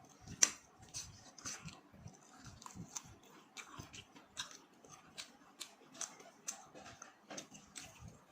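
Close-up mouth sounds of eating: irregular wet chewing clicks and crunches, about two a second, with one sharper, louder click just after the start.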